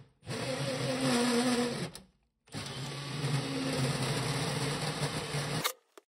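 Cordless brushless drill, a Milwaukee FUEL, running in two steady runs, with a short pause between them, while drilling a hole through the sheet-metal panel of an air-conditioner A-coil.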